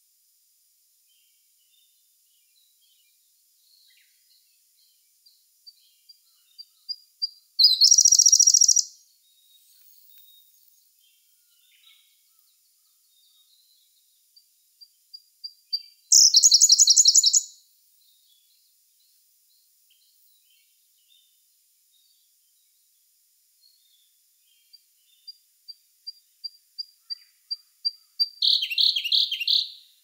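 Siberian blue robin singing three songs. Each is a run of thin, high notes that get louder and quicker, then ends in a loud, rapid trill lasting about a second.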